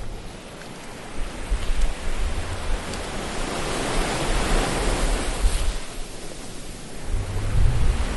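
Ocean surf washing in, one wave swelling about four seconds in and then fading away, with wind gusts rumbling on the microphone near the start and the end.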